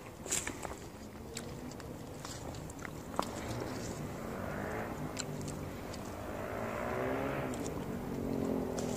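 A distant vehicle engine hum that swells and fades over several seconds, with scattered small clicks and rustles from plum branches being handled during picking.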